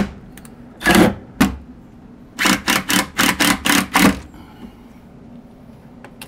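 Cordless drill/driver driving mounting screws into a plywood board in short trigger bursts: one about a second in, then six quick bursts close together between about two and a half and four seconds in.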